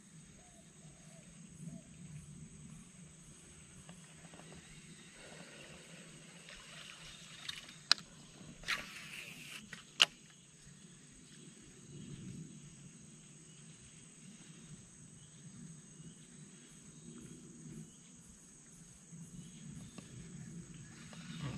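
Faint outdoor ambience with a steady high insect drone, broken by two sharp clicks about 8 and 10 seconds in and a short hiss between them.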